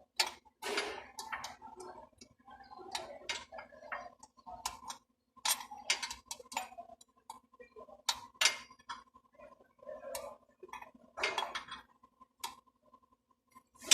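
Irregular sharp clicks and light metallic clinks, like hand tools and small metal parts being handled and knocked together, over a faint steady hum.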